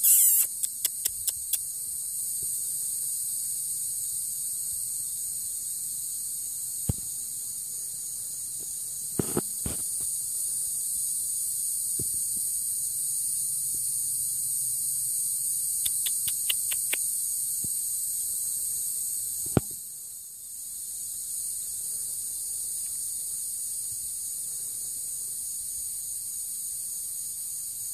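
Steady, high-pitched chorus of insects in a summer field. Two brief runs of quick ticks, one at the start and one about two-thirds through, and a few single sharp knocks stand out.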